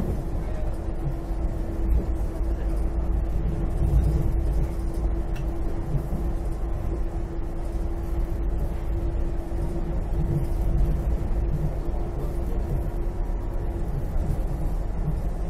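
Rubber-tyred airport people-mover car running along its concrete guideway, heard from inside the car: a steady low rumble with a constant hum over it.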